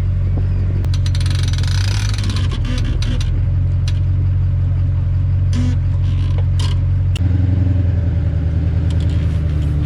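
An engine running steadily, its pitch stepping up about seven seconds in, with scattered clicks and knocks over it.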